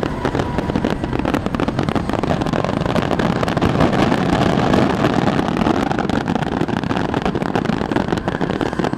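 Dense barrage of aerial fireworks: rapid crackling pops over a continuous rumble of bursts, loudest around the middle.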